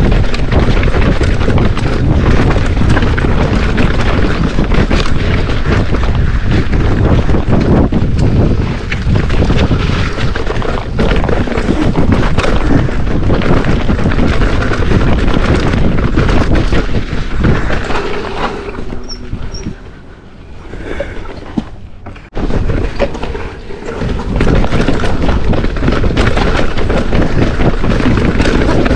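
Wind buffeting the microphone over tyre rumble and the rattle and knocks of a mountain bike riding fast down a rocky dirt trail. It dies down for a few seconds about two-thirds of the way through, then picks up again.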